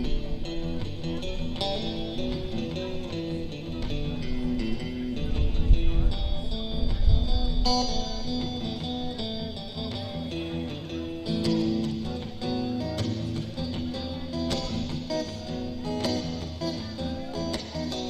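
Live band playing an instrumental passage, an electric guitar carrying the lead over bass.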